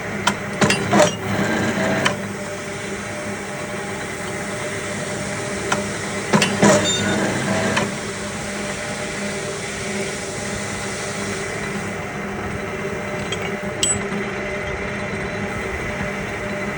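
TOYO C32 rebar cutting machine running with a steady motor hum, with two bursts of metallic clanking, one near the start and one about six seconds in, as the blade shears steel bar.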